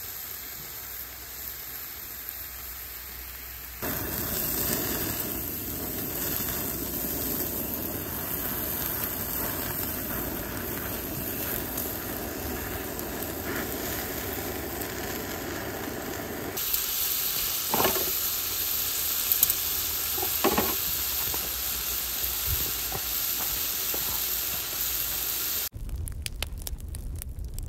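Meat sizzling on a hot grill plate over a portable gas stove, getting louder about four seconds in, with a few sharp clicks later on. Near the end the sizzling cuts off abruptly, giving way to a steady low hum.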